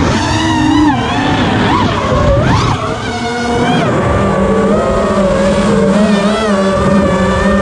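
FPV quadcopter's brushless motors and propellers whining in flight, heard from a camera mounted on the quad. The pitch swoops up and down with the throttle for the first four seconds or so, then settles into a steadier whine.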